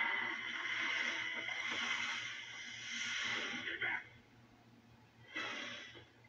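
Film sound effect played through a TV: a loud, hissing rush of noise that cuts off about four seconds in, with a second short burst about a second and a half later.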